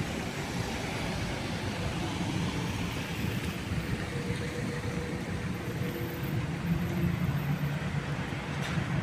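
Steady street noise of vehicle traffic, a continuous low rumble with no single event standing out.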